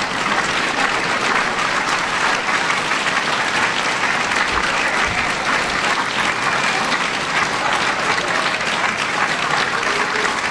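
Audience applauding steadily, a dense even clapping from a large room of seated guests.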